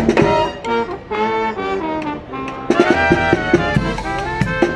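Upbeat instrumental music led by brass, with held horn notes over a drum beat.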